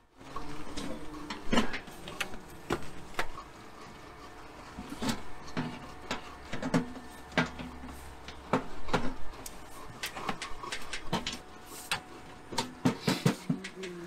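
Irregular knocks and clicks of objects being handled, some sharper and louder than others.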